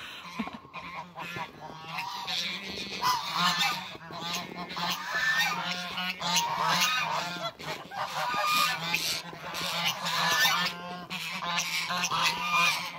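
A flock of domestic geese honking, with many overlapping calls throughout. They are geese in breeding season, which is a lot louder than normal.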